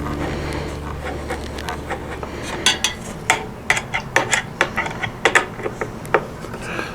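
Screwdriver and metal mounting hardware of a CPU air cooler clicking and scraping as the cooler's spring-loaded screws are tightened down: a low hum in the first second or two, then a quick run of sharp, irregular clicks and taps.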